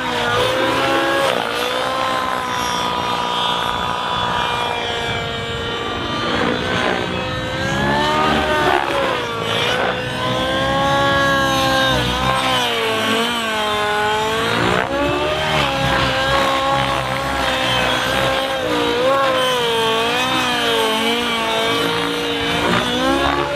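SAB Goblin 700 Nitro model helicopter's two-stroke nitro glow engine running hard through aerobatics. Its note holds steady briefly and then swoops up and down again and again as the helicopter is pushed through manoeuvres and passes by.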